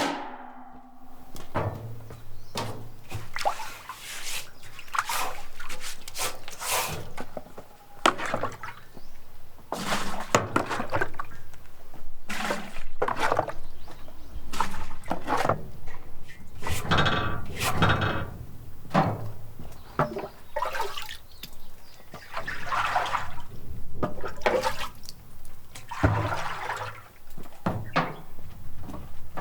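Water splashing and sloshing in irregular surges, with a few knocks among them.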